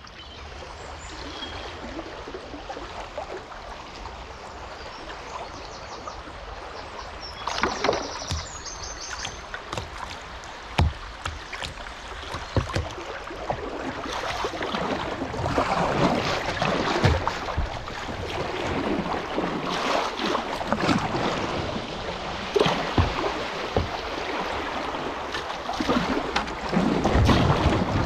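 River water rushing and splashing against a kayak's bow as it moves downstream, with irregular splashes that grow louder and more frequent in the second half.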